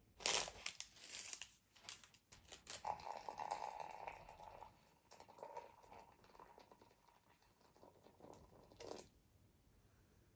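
Crinkling and crunching at the start, then hot water poured in a thin stream into a paper drip coffee bag hung on a glass: a faint, steady trickling pour with a light ringing tone that stops about nine seconds in.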